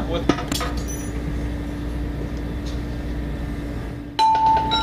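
Steady low machinery hum with a constant tone running under it in an aircraft hangar, a few light clicks at the start. About four seconds in, a loud, clear high tone comes in suddenly and holds.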